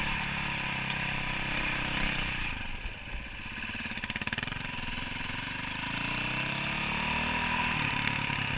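Dirt bike engine heard up close from the rider's helmet. It eases off and drops to a lower, pulsing note a few seconds in, then pulls up again with a rising pitch near the end.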